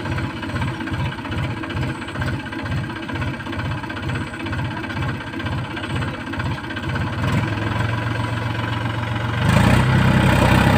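Mahindra tractor's diesel engine, freshly started, idling with a slow, even knocking beat of about three pulses a second. About eight seconds in the engine speeds up into a steadier note, and near the end it runs louder and harder as the tractor works in deep mud.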